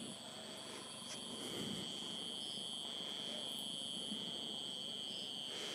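Faint background chirring of insects, steady high-pitched tones with a higher trill that comes and goes every second or so, under low room hiss.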